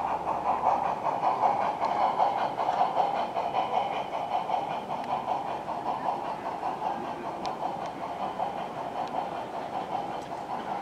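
Gauge 1 model steam locomotive running along the layout track, a steady mechanical running and rail clatter that grows fainter toward the end.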